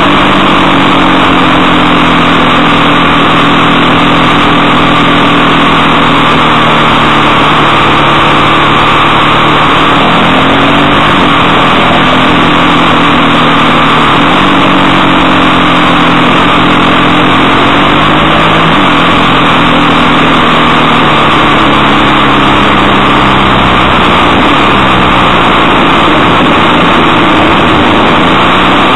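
Onboard motorcycle running along a road, its engine note sinking slowly and climbing again a few times as the rider eases off and gets back on the throttle, under loud, steady wind rush on the microphone.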